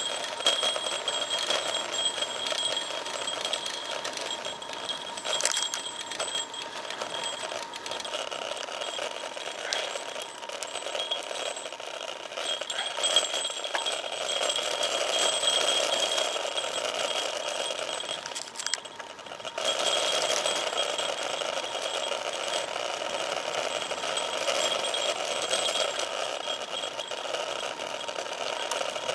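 Bicycle freewheel hub buzzing with rapid ticking as the bike coasts, over steady wind and tyre rush from riding. The whole sound dips briefly about two-thirds of the way through.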